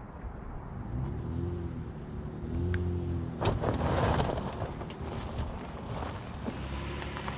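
A 2020 Honda Ridgeline's 3.5-litre V6 pulling under load as the truck crawls up a steep dirt hill, its pitch rising and falling with the throttle. There is a sharp crack about three and a half seconds in.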